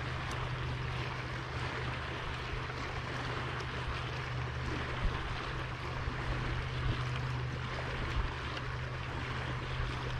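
Steady rush of moving water around a kayak, with wind on the microphone, over a constant low hum.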